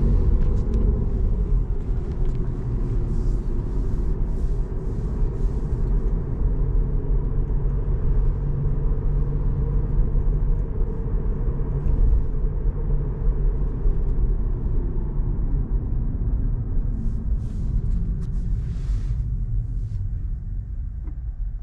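Road and tyre rumble heard inside the cabin of a Tesla Model 3 on the move, a steady low drone with no engine note from the electric car. It eases a little near the end.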